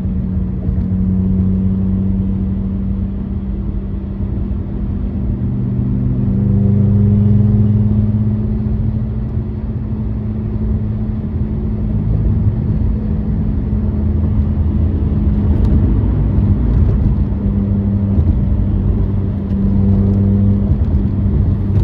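Mazda RX-8's rotary engine droning steadily at freeway cruising speed, with tyre and road noise. The pitch shifts a little with the throttle and the sound swells briefly about six to eight seconds in.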